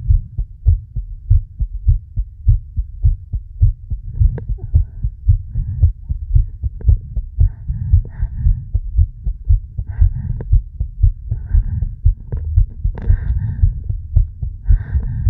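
Human heartbeat, a steady rhythm of deep low thumps, with breathing sounds coming in from about four seconds in and recurring more often toward the end.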